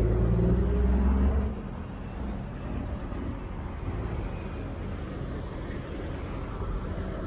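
A big-rig truck's diesel engine running close by, a deep low hum that drops away about a second and a half in, leaving a steady low rumble.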